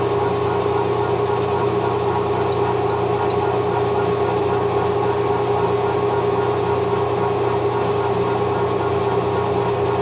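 Metal lathe running steadily while boring out a drive pulley, its motor and gearing giving a constant whine over a low hum.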